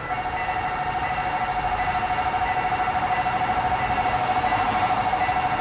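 Level crossing warning bell ringing as a single steady tone that pulses rapidly. It starts abruptly at the very beginning and signals an approaching train. A brief hiss comes about two seconds in.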